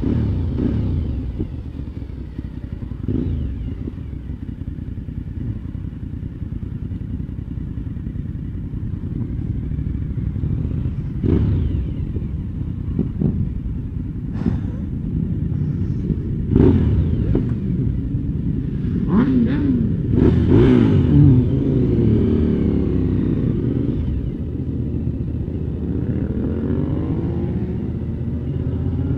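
Motorcycle engines running under wind noise on the microphone. The bikes of a group slow down and idle, then rev and pull away, with several short sharp pops in the middle part. A rising engine note comes over the last few seconds as the bikes accelerate.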